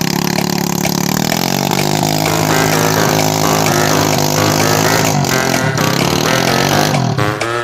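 Dirt bike engine running steadily at low revs; it cuts off abruptly near the end.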